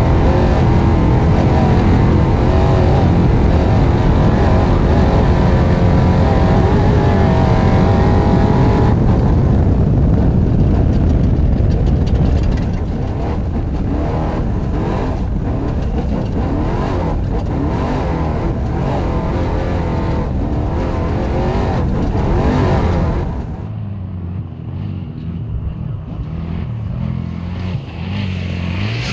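Off-road race truck's engine running hard, loud from inside the cab at first with heavy engine and road noise. Later it is heard from outside, quieter, the engine note rising and falling as the truck comes toward the microphone.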